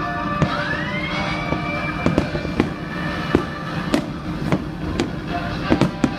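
Fireworks bursting overhead: a rising whistle near the start, then a string of sharp bangs and pops, about a dozen, over background music.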